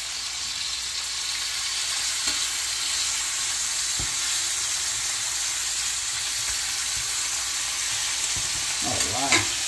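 Thick mahi-mahi fillets frying in hot olive oil in a pan, a steady sizzle with a few faint clicks.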